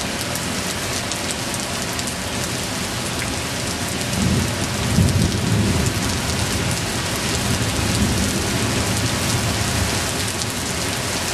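Heavy thunderstorm rain falling steadily, with a low rolling rumble of thunder coming in about four seconds in and fading away over several seconds.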